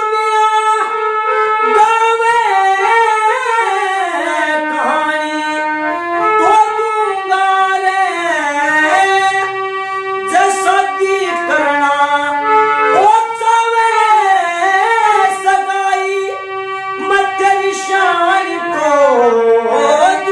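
A man singing a Haryanvi ragni in long, sweeping, held phrases, to his own harmonium, whose reeds sustain steady tones beneath the voice.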